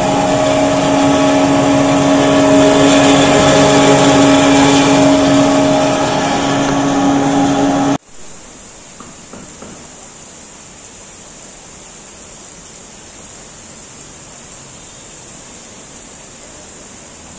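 CKE 16-inch industrial exhaust fan with bad bearings running loud and rough: a steady hum with several steady tones. About eight seconds in it cuts to a pair of Matsushita 16-inch industrial exhaust fans running outdoors, a much quieter steady whoosh.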